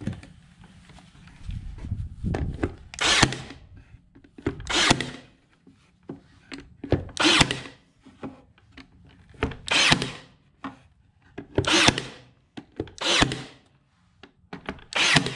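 Ryobi cordless stapler driving staples into a thin wooden strip on a board, about seven shots at intervals of a second or two, each a short burst of power-tool noise.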